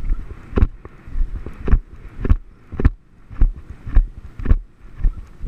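Horse cantering on grass, with a heavy rhythmic thud on each stride, nearly two a second, over wind on the microphone.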